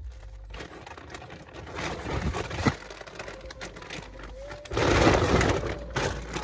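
Pigeons or doves cooing, with a short, steady, low call about four seconds in, plus scattered light clicks and handling noises. The loudest sound is a rustling burst of noise lasting about a second, starting about five seconds in.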